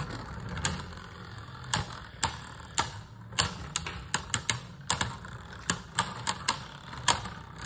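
Two Beyblade Burst spinning tops (Spryzen) battling in a plastic stadium: irregular sharp plastic clacks as they strike each other, sometimes several in quick succession, over a steady low hum.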